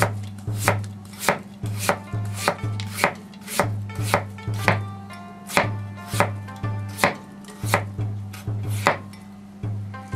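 Kitchen knife slicing daikon radish on a plastic cutting board: a steady run of sharp chops, each blade striking the board, about three every two seconds.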